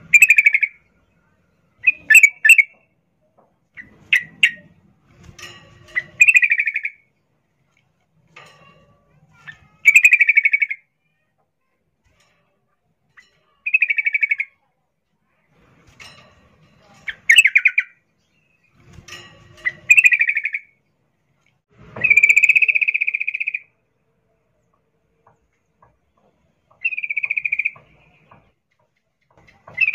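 A female yellow-vented bulbul (trucukan) in breeding condition gives short, chattering calls to attract a male, repeated every couple of seconds with quiet gaps between. One longer call comes about three-quarters of the way through.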